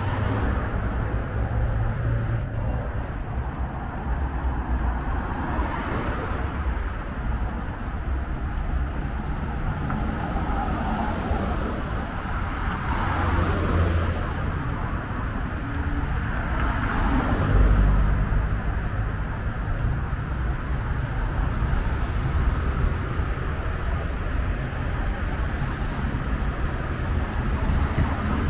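Road traffic on a multi-lane avenue: a steady rush of car engines and tyres, with several cars passing close that swell and fade, the loudest about two-thirds of the way in.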